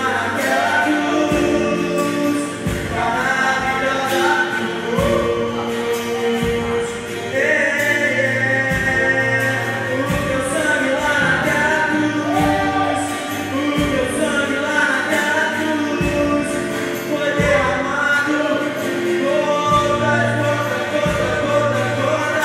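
Gospel worship music: several voices singing together over instruments, with a slow steady beat.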